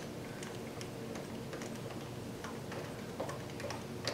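Irregular light clicks and ticks of screws being driven in by hand to fasten a door latch's striker, over a faint steady hum.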